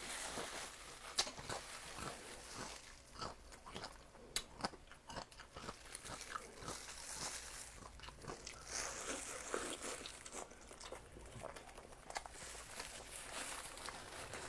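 Close-miked eating: crunchy food being bitten and chewed, with irregular crisp crunches and crackles throughout.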